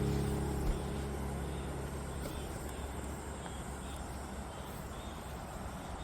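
Steady rushing of a waterfall, an even wash of noise, while the last low piano notes fade out over the first two seconds or so.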